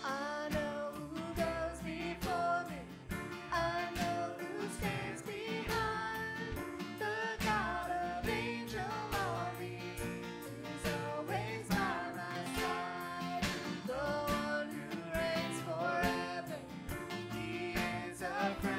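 Live worship band playing a song: voices singing over strummed acoustic guitar, electric bass and grand piano.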